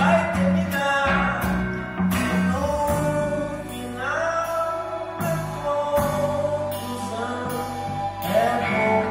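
Live trio playing a slow song: a voice sings long held notes over guitars and drum kit, with light cymbal strikes about once a second.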